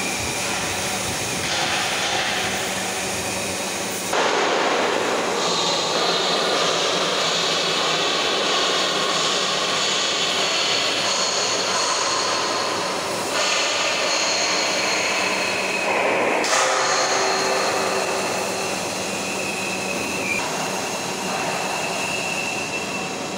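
Wire-fed robotic MIG welding arc on steel pipe: a steady hissing crackle with high thin tones over it. It changes abruptly about four seconds in and again a few times later.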